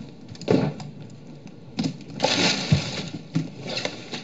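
Packing material crinkling and crackling in irregular bursts as parcels are handled, the longest burst about halfway through, with a dull thump just after it.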